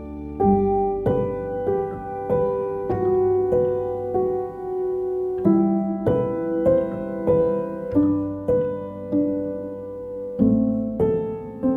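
Background piano music: a slow melody of single struck notes about every half second over held low notes.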